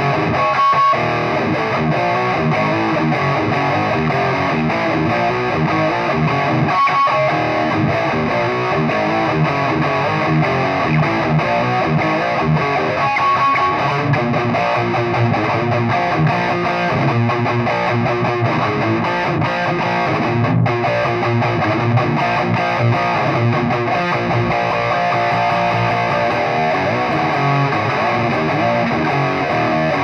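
Distorted electric guitar played through a Marshall 4x12 cabinet, riffing continuously with short breaks about a second in, about seven seconds in and about thirteen seconds in.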